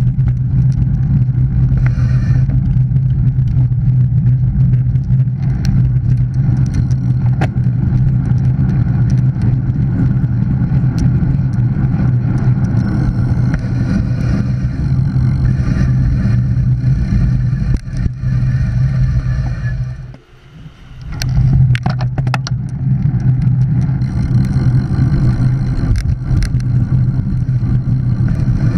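Steady wind rumble over a handlebar-mounted action camera's microphone on a moving road bike, mixed with tyre and road noise. It drops away briefly about twenty seconds in, then a few sharp clicks come before the rumble returns.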